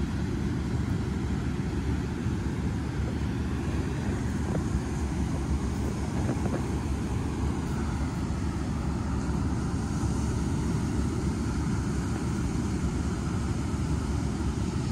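Steady wind rumble on the microphone over the wash of ocean surf.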